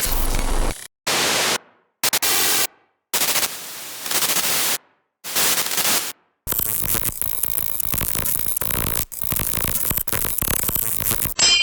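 A run of separate static-noise sound effects: about six short bursts of hiss, each half a second to a second long with silent gaps between, then a longer stretch of crackling static lasting about five seconds that cuts off near the end.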